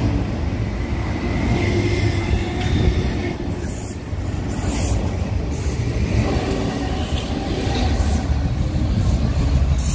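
Hong Kong MTR electric train running on the rails: a steady low rumble with a faint high wheel squeal in the first few seconds.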